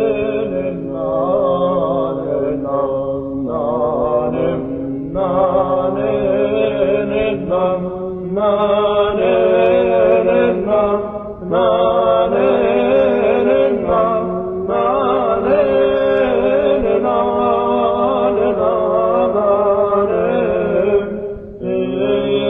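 Chanting by several voices: a steady held drone under a slowly wavering melody, sung in phrases with brief breaths between them.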